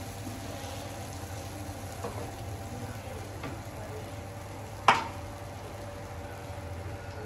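Cashew-and-tomato gravy paste sizzling as it fries in oil in a pan, stirred now and then, with a sharp clink of the spoon against the pan about five seconds in.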